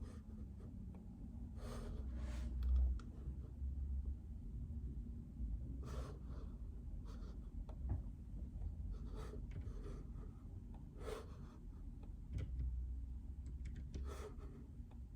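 Sparse desk-work sounds: about seven short, soft scratching or rustling strokes at uneven intervals, over a steady low rumble.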